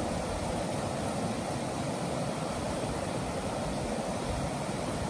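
Steady rush of a stream running over rocks through small rapids.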